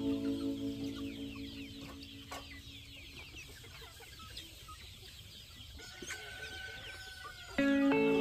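A flock of chickens clucking and chirping in many short, quick calls. Background music fades out over the first few seconds and comes back in abruptly near the end.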